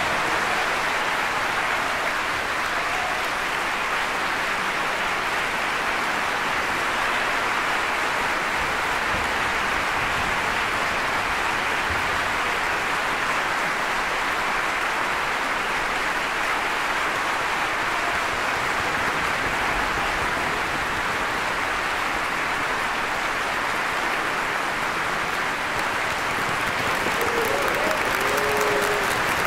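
Audience applauding steadily at the end of the piece.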